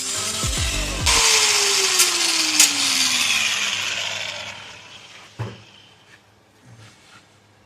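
Angle grinder cutting through a rusted exhaust bolt head with a loud grinding rush, then the motor spinning down with a falling whine as the noise fades. A single knock comes near the end.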